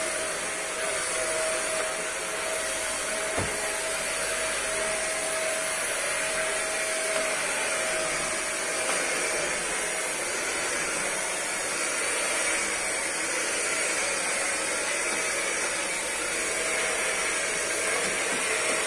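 Electric vacuum cleaner running steadily as it sweeps the floor, with a thin steady whine over the motor noise in the first half and a short knock about three and a half seconds in.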